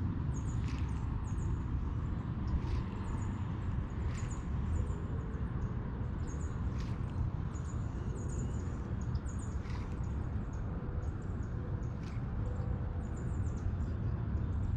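Small birds chirping in short, very high-pitched calls that repeat over and over, over a steady low rumble, with a few faint clicks.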